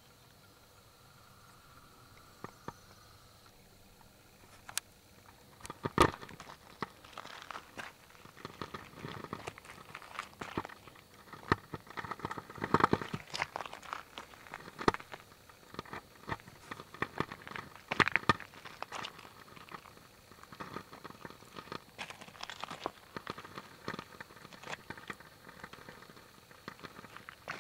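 Footsteps on a dry gravel and cobble river bar: irregular crunches and clicks of loose stones shifting underfoot, starting about five seconds in after a quiet stretch.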